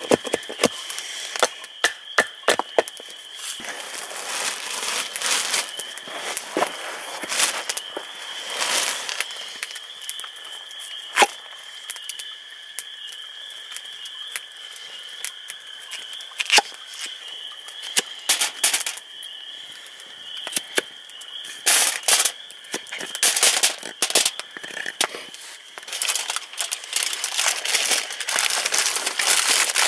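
Kitchen knife chopping potatoes on a wooden block, a run of sharp knocks and clicks, over a crackling campfire. Aluminium foil crinkles loudly in bursts near the end as the vegetables are wrapped.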